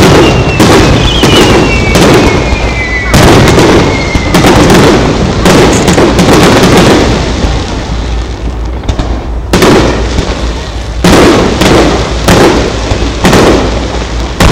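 Fireworks display: aerial shells bursting in quick succession, loud bangs over a continuous crackle. A whistle falls in pitch over the first few seconds, and there is a brief lull about nine seconds in before the bursts resume.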